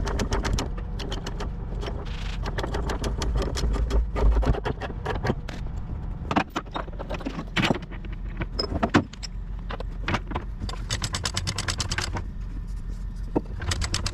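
An engine running steadily at low revs under many sharp clicks and knocks, which come thickest about eleven to twelve seconds in.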